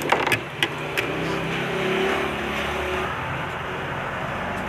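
A motor vehicle's engine passes by, swelling to its loudest about two seconds in and then fading, after a few light clicks of a spoon on a plate near the start.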